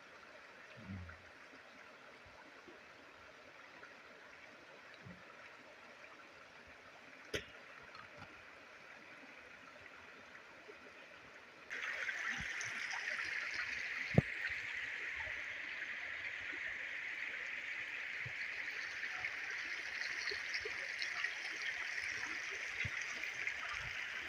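Mountain stream running, a steady rush of water that becomes suddenly louder about halfway through, with a couple of brief sharp clicks.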